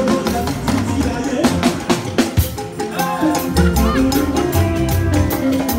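Music with drums and percussion keeping a fast, steady beat.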